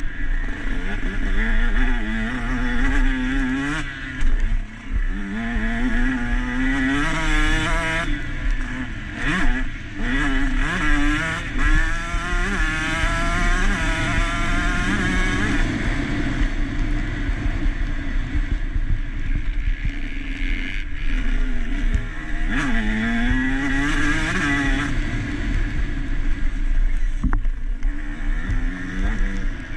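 KTM 150 SX two-stroke motocross engine heard onboard under race riding, revving out again and again in rising sweeps as it pulls through the gears, with short drops in pitch between them.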